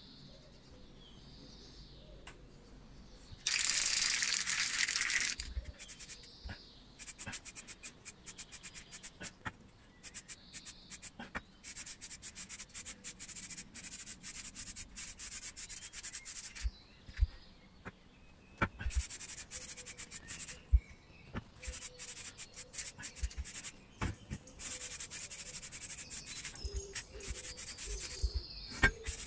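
Aerosol can of high-temperature heat-resistant paint spraying with a hiss. There is one long burst a few seconds in, then many short, choppy bursts. A few sharp knocks come in the middle.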